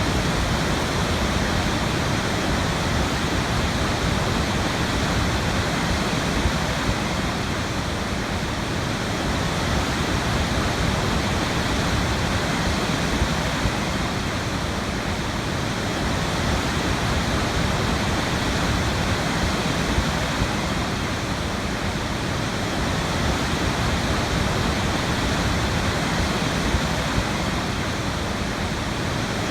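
Waterfall, water pouring and splashing in a steady, full rush.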